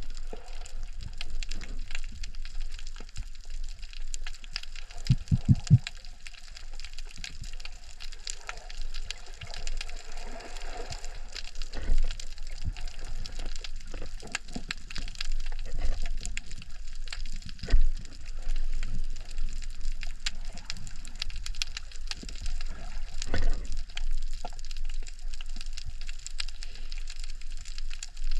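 Underwater ambience picked up through a camera housing: a constant fine crackling and clicking, with scattered low knocks and a brief cluster of low thuds about five seconds in.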